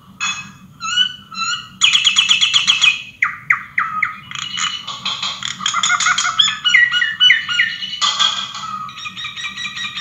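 Many birds chirping and squawking at once, the calls overlapping. A run of short calls sliding downward in pitch comes about three seconds in and again around seven seconds.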